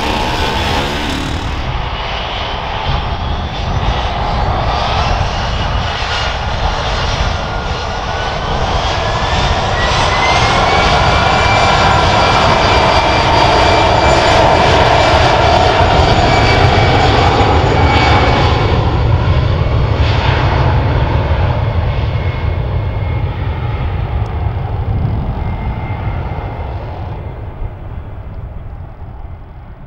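Airbus A319's twin CFM56 turbofan engines spooling up to takeoff thrust, a whine rising in pitch about seven to eleven seconds in. Loud jet noise follows as the aircraft makes its takeoff roll, then fades away over the last several seconds.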